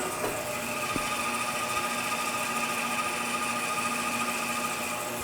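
Grizzly G0555X 14-inch bandsaw running free with no cut, a steady, quiet motor hum with a higher whine over it; a small click about a second in.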